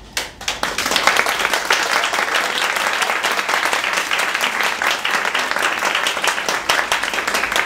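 Audience applauding: dense, steady hand clapping that breaks out about half a second in.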